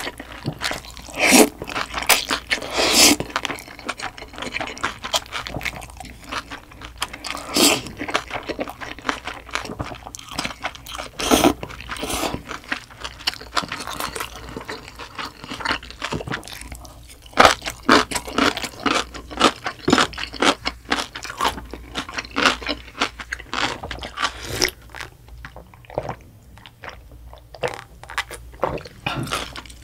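Close-miked eating of spicy noodles mixed with young-radish kimchi: slurping, then a steady run of crunching, chewing and wet mouth clicks. The crunching thins out near the end as she sips from a bowl of liquid.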